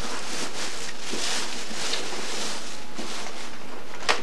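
Plastic bag rustling and crinkling as a gift box is pulled out and handled, with a few sharp crackles near the end.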